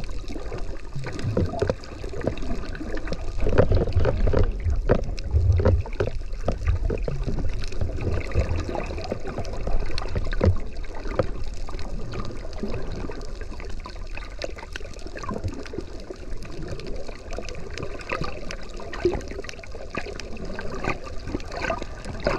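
Water movement heard underwater: a muffled sloshing rumble with scattered clicks and crackles, louder for a few seconds near the start.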